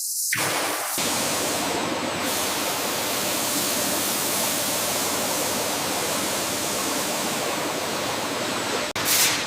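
A steady, even rushing noise, with a short whoosh near the end.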